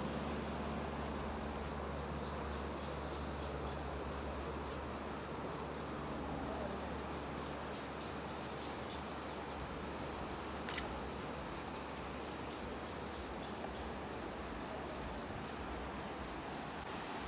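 Crickets chirring in a high, steady trill that comes and goes in long spells, over the steady rush of river rapids.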